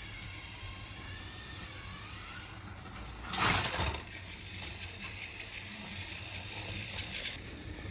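Battery-powered Plarail toy train whirring steadily as its small motor and gears drive it along plastic track, with a short rustling clatter about three and a half seconds in.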